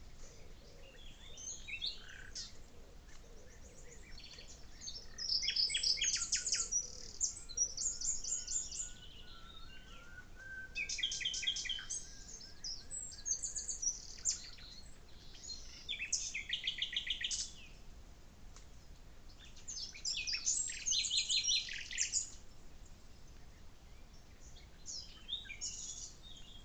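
Forest songbirds singing: high-pitched trills and chirps in bursts every few seconds, over a faint steady background hiss.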